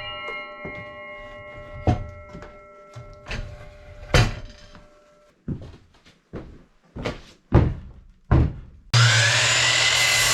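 A power saw dies away, then about eight separate wooden knocks and thunks as lumber is handled. Near the end a power saw switches on abruptly and runs steadily.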